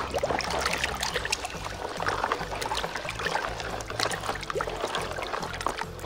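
Muddy water sloshing and splashing in a plastic basin as a hand scrubs a toy vehicle back and forth under the surface, in irregular, uneven swishes.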